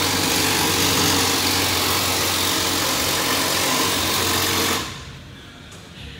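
A small motor running steadily, a low hum under a hiss, that cuts off about five seconds in.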